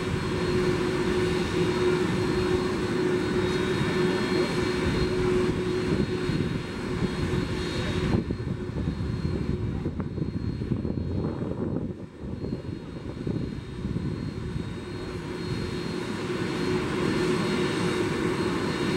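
Jet engines of an Airbus A300-600ST Beluga (General Electric CF6-80C2 turbofans) idling, a steady whine over a rushing noise. About eight seconds in, the higher part of the sound drops away suddenly, and it builds back gradually a few seconds before the end.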